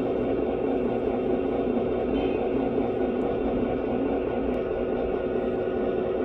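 Diesel switcher engine idling steadily, played by the sound system of a Lionel Legacy O-scale SW8 model locomotive, with an even low rumble and a steady hum.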